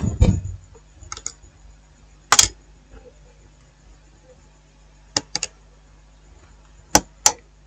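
Small, sharp clicks and taps from handling the parts of an opened smartphone on a workbench: a soft knock at the start, then scattered single clicks, a quick run of three about five seconds in, and a close pair near the end.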